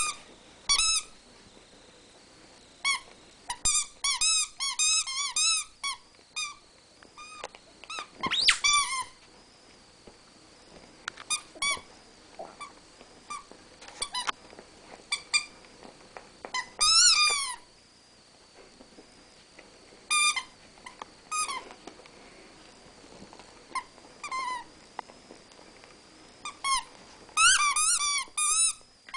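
Rat terriers play-fighting, giving short high-pitched squeals and yips that rise and fall in pitch, coming in quick runs with pauses between.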